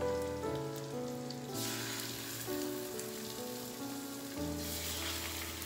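Raw haddock fillets sizzling in hot olive oil and garlic as they are laid into the frying pan, the sizzle swelling about a second and a half in and again near the end. Background music of slow, held notes plays throughout.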